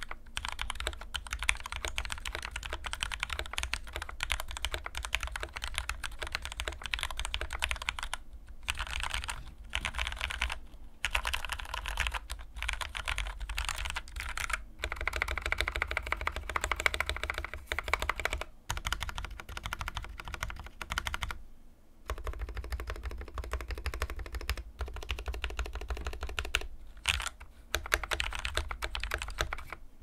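Fast typing on a foam-dampened KBD75v2 mechanical keyboard with lubed Gateron Yellow linear switches, in quick runs of keystrokes broken by brief pauses every few seconds.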